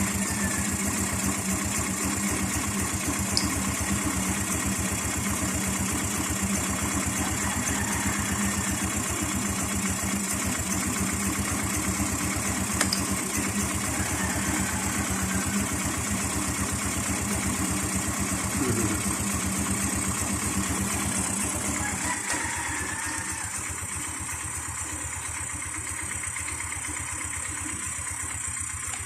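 Rusi 125cc scooter's single-cylinder engine idling steadily. About 22 seconds in, the sound drops a little and its low end thins out.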